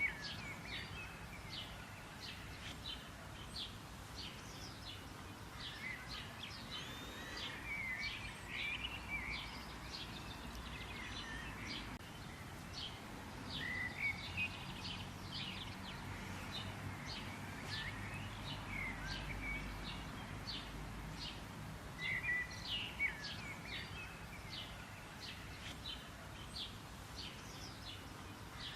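Wild birds chirping and calling, a dense run of short, quick chirps with now and then a curling whistled note, over a faint low background rumble.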